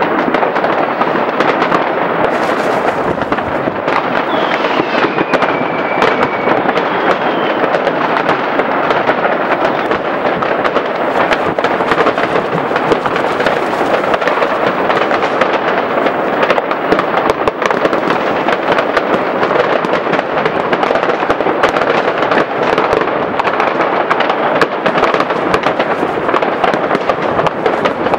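Dense, continuous crackling and banging of many fireworks and firecrackers going off at once, with no pause. About four seconds in, a firework's whistle glides down in pitch and then holds.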